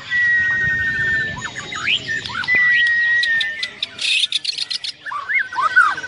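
White-rumped shama (Bornean murai batu) singing: long, steady whistled notes, the first held nearly two seconds, mixed with rising slurred phrases and a quick run of sharp clicking notes about four seconds in.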